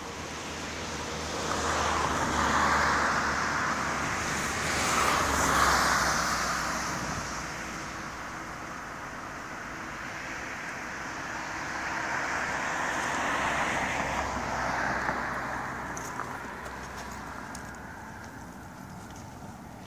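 Cars passing on a road: tyre and engine noise swelling and fading as each one goes by, loudest twice in the first six seconds and again past the middle.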